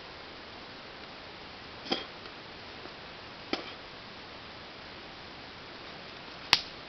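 Three sharp clicks over a steady hiss: one about two seconds in, another about a second and a half later, and a louder one near the end.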